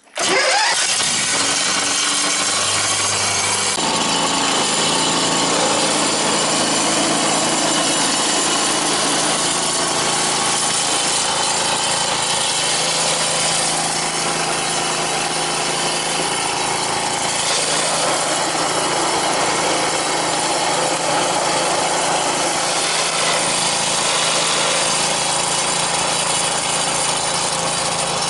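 Vanguard 23 hp V-twin engine running steadily at high throttle, driving a Hale HP200 fire pump that is discharging water through the hose. The sound is a loud, even engine buzz mixed with a hiss, starting suddenly and changing slightly in tone about four seconds in.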